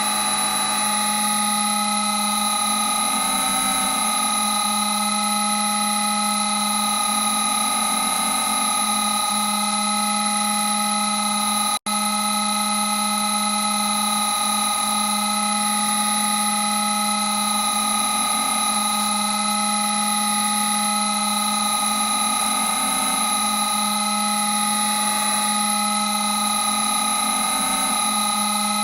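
"Creepy glow" sound effect: a steady electronic drone of several held tones stacked from low to very high, slowly wavering. It cuts out for an instant about twelve seconds in and resumes unchanged.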